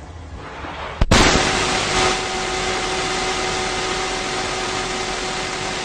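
A click, then a loud steady rushing hiss, the sound of the sea as heard when a shell is held to the ear, with faint steady tones running under it.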